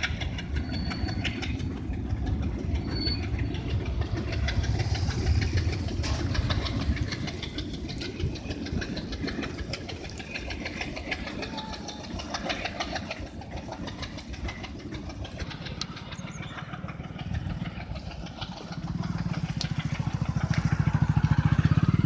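Alco WDG-3A diesel locomotive working as it pulls a freight train away: a steady low engine rumble with wagon rattle. Near the end a louder low, pulsing engine drone swells up.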